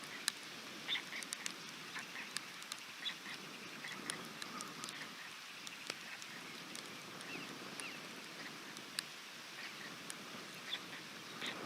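Rain falling on a white stork nest, with irregular sharp drips and ticks of drops hitting close by over a steady wash of rain. Short bird calls are scattered through it.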